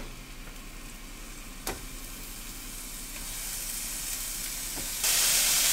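Chicken breast sizzling as it goes into a hot oiled frying pan, the hiss slowly growing louder. A light knock comes about a second and a half in, and near the end the sizzle suddenly jumps much louder.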